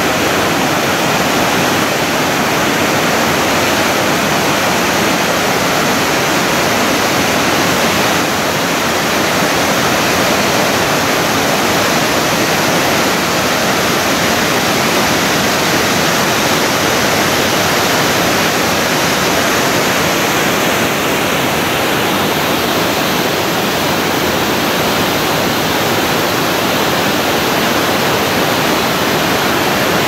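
Steady, unbroken rush of water from the Thi Lo Su waterfall, a large multi-tiered falls.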